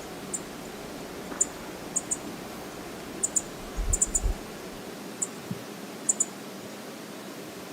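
Steady rush of water at Brooks Falls, with a scattering of short, sharp high ticks, some in quick pairs.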